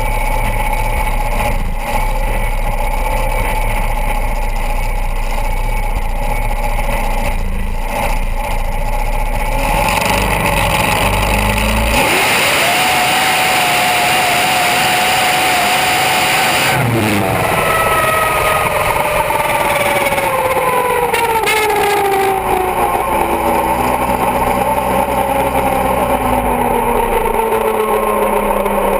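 A Top Alcohol dragster's alcohol-burning V8 runs steadily, then opens up to full throttle for about five seconds, its pitch held nearly level. The power cuts off suddenly, and falling whines follow as the car slows down.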